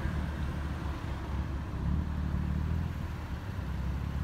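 Lamborghini Huracán's V10 engine cruising on the road: a steady low drone over tyre and road noise, swelling slightly about two seconds in.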